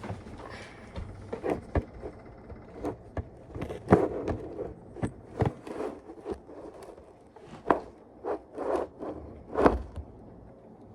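Household items being handled and put away: irregular knocks, clacks and short scrapes, a dozen or so, loudest about four seconds in and near the end.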